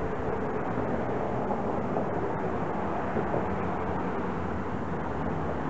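Steady outdoor background noise: the even hum of road traffic.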